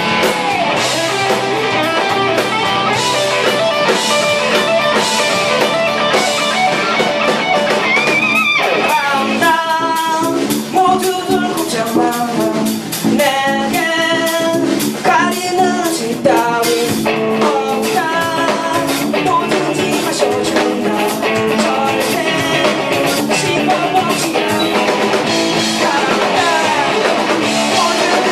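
Live punk rock band playing: electric guitars and drum kit, with a sung or lead line that slides and bends in the middle.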